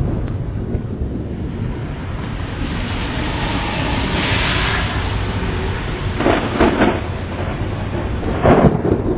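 Thunderstorm wind with a low rumble of thunder. A car's tyres hiss past on the wet road around the middle, and gusts buffet the microphone twice near the end.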